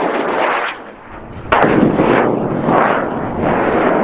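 High-power rocket motor noise in flight: the M2203 booster's rushing burn drops away under a second in. About a second and a half in, a sudden loud crackling burn starts up, consistent with the cluster of J381 motors air-starting in flight.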